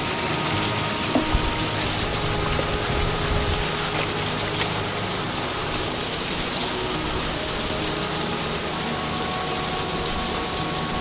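Small waterfall splashing down a rock face close by, a steady rushing of water.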